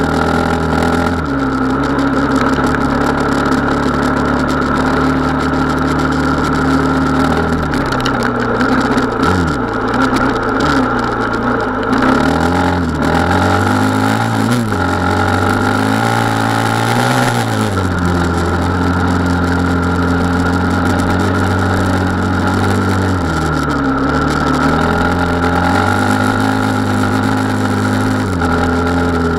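Gas Gas 450 Wild HP's engine running under way, mostly holding a steady pitch, with the pitch dropping and climbing back several times as the throttle is eased and reopened.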